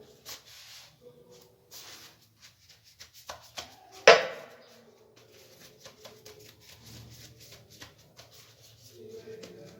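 Thin warqa pastry sheets rustling and crinkling as they are handled and laid in overlapping layers, with scattered light taps and one sharp knock about four seconds in.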